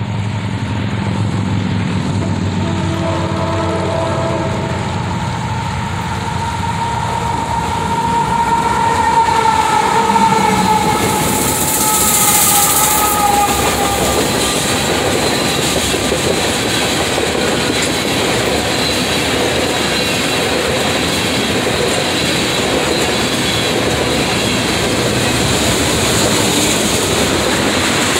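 Freight train with diesel locomotives approaching and passing, horn sounding in the first half with its pitch falling as the locomotives go by. Then a long string of tank cars rolls past with steady wheel clatter.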